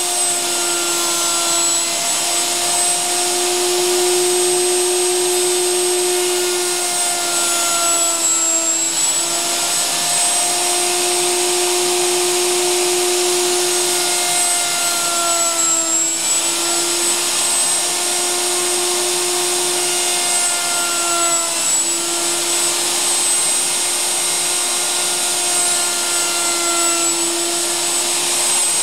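Router running steadily in a router table with a high whine. Its pitch sags briefly about three times as the bit cuts transverse decorative grooves into a wooden shelf board fed past a jig.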